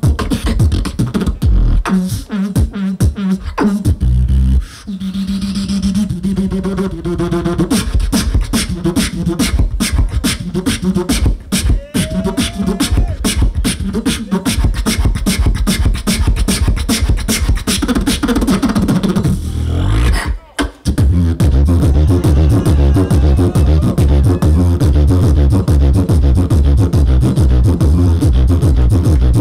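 Live beatboxing into a handheld microphone through a stage PA: a rapid run of vocal kick, snare and hi-hat sounds mixed with held, hummed bass tones. About 20 seconds in it breaks off briefly, then comes back as a steady, fast, bass-heavy beat.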